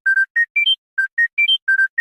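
Phone ringtone: a quick melody of short, clean electronic beeps, each separated by silence, playing a rising four-note run that repeats about once a second.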